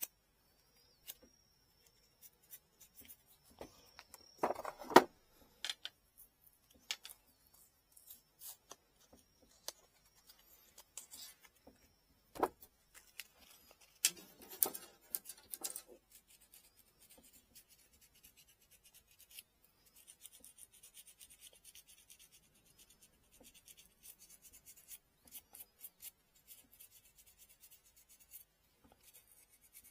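Folded sandpaper rubbed by hand along a bamboo rod tip, cleaning the dirt from around and between the nodes in short scratchy strokes. A few handling knocks stand out, the loudest about five seconds in and another near the middle.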